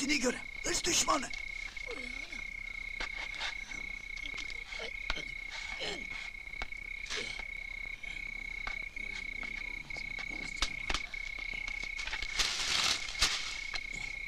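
Night ambience of frogs croaking irregularly over a cricket's steady, unbroken high trill.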